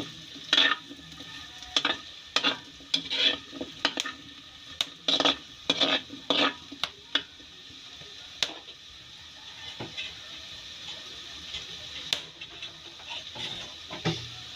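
Metal spatula scraping and clanking against a steel wok as cubed potatoes are stirred, over the steady sizzle of the potatoes frying. The stirring stops about halfway through, leaving the sizzle with a few scattered clicks.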